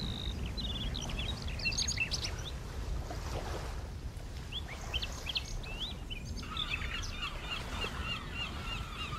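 Birds chirping and calling over a steady low rumble. Scattered bunches of short chirps come in the first half, then a rapid run of repeated chirps starts about two-thirds of the way in.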